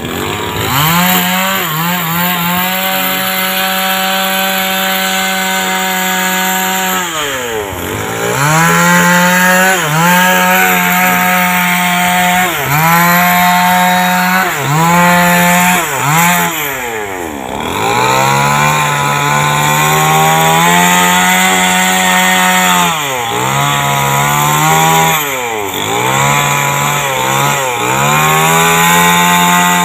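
Chainsaw running at high revs and cutting timber, its pitch sagging under load and dropping sharply then picking up again about five times as the throttle is eased and reopened.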